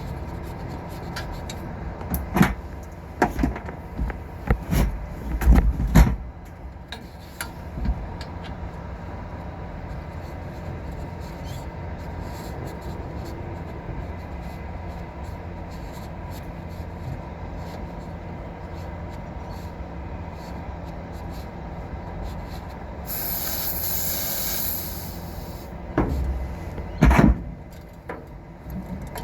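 Knocks and clatter of hand work on metal over a steady hum, with a burst of hiss lasting about three seconds late on.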